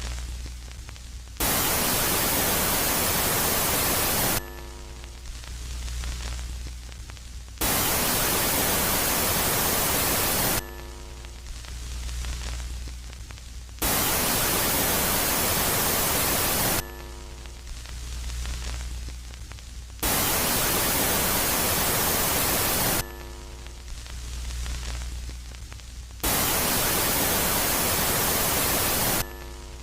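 Electronic 'space sound' track of static noise switching back and forth between a loud and a quiet phase. Five loud bursts of even hiss, each about three seconds long, come about every six seconds. In between, a quieter swelling hiss runs over a low hum with a few faint steady tones.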